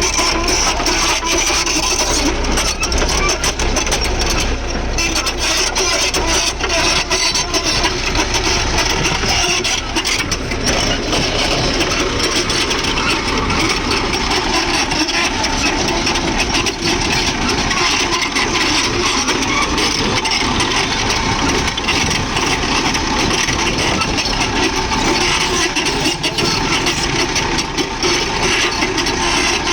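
Backhoe loader's diesel engine running steadily while working, with a heavy low rumble that eases about ten seconds in.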